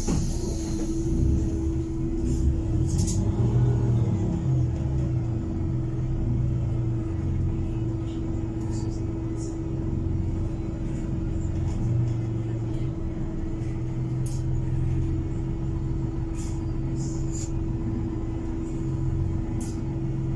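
Cabin noise of a Heuliez GX337 natural-gas city bus under way: a low engine rumble that swells and eases, over a steady hum, with scattered light clicks and rattles from the interior fittings.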